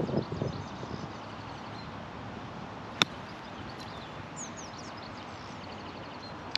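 A golf club striking the ball on a short approach shot: one sharp click about three seconds in. Birds chirp faintly throughout.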